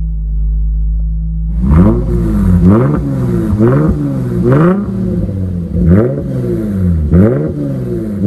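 2021 Lexus IS 350 F Sport's 3.5-litre V6 through a Kinney's Street Demon performance exhaust with quad tips. It idles low and steady, then is blipped in a series of quick revs, about one a second, each rising and falling back to idle.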